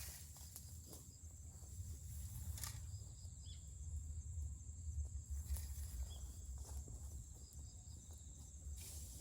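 Pile of dry cut weeds burning, with a low steady rumble and a few scattered sharp crackles.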